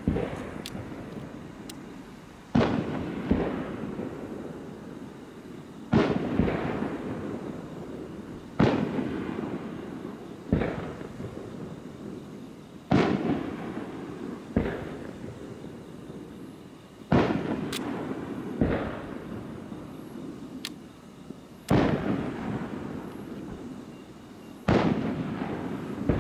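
Aerial fireworks shells bursting, about a dozen booming reports every two to four seconds, some coming in quick pairs. Each report trails off in a long rumbling reverberation.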